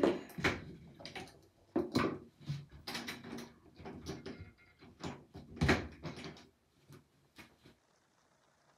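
Rummaging through a bathroom drawer: a string of sharp knocks and clatters with rustling between them as things are moved about and a headband is pulled out.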